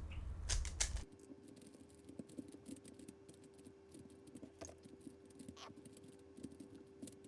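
Rubik's cube being scrambled: rapid plastic clicking of the turning layers, louder for about the first second, then fainter and sparser over a faint steady hum.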